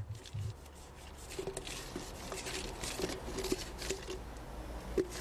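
Hand scoop working fresh wet concrete: scooping and dumping it, with soft irregular pattering and scraping as the mix falls and slides.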